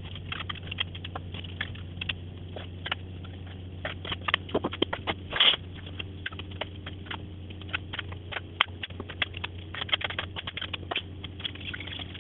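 Kitchen knife cutting raw chicken breast on a plastic chopping board: irregular light knocks and taps of the blade on the board, a few louder ones near the middle, over a steady low hum.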